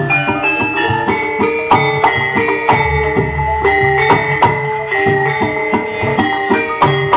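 Javanese gamelan music played loud over a sound system: metallophones strike a steady run of ringing notes over drum strokes.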